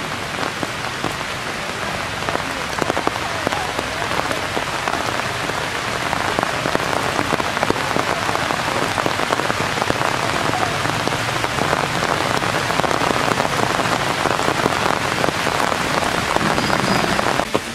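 Rain falling steadily on leaf-littered forest ground, a dense hiss of many small drop impacts that grows louder a few seconds in and then cuts off suddenly near the end.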